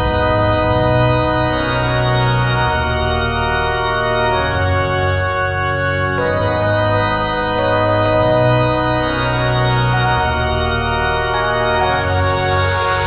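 Background music: held organ chords that change every second or two, over a low bass line.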